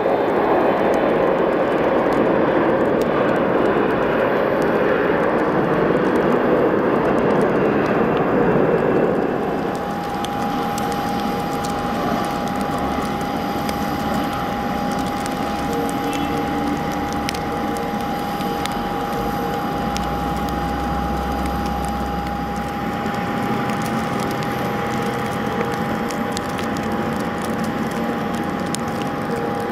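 Jet engines of a rear-engined regional jet at takeoff power on its takeoff roll along a snowy runway, a loud even roar. About nine seconds in it gives way to a quieter steady hum with one held tone and scattered light clicks.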